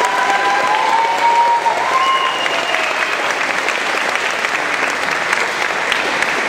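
Audience applauding steadily. A drawn-out high cheer rises over the clapping in the first two seconds.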